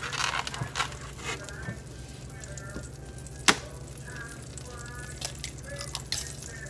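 An egg cracked against the rim of a frying pan: one sharp crack about halfway through, over a low steady hum.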